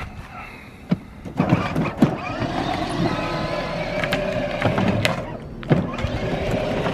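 Battery-powered ride-on toy Mercedes ML63 AMG driving over grass and a concrete path: its plastic wheels rumble with scattered knocks, and a faint steady whine from its electric motor comes in about three seconds in.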